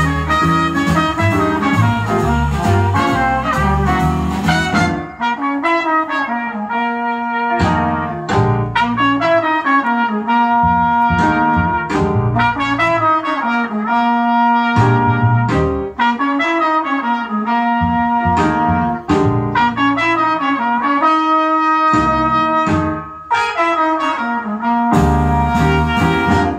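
Jazz recording with a horn carrying the melody over a bass line, played back through a Philips valve amplifier and 1960s Altec Lansing full-alnico 16-ohm speakers.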